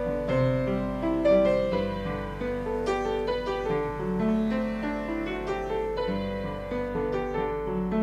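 Piano music playing a melody of held notes.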